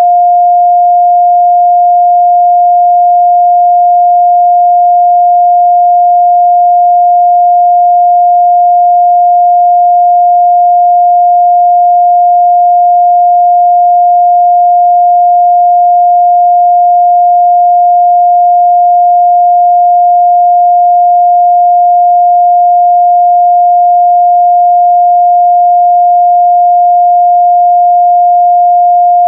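A pure 706 Hz sine-wave test tone, held steady and unbroken at a constant loud level.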